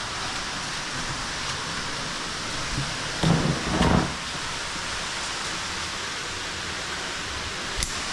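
Steady rush of an underground waterfall echoing in a cave. Two brief louder bumps come about three and four seconds in, and a short click near the end.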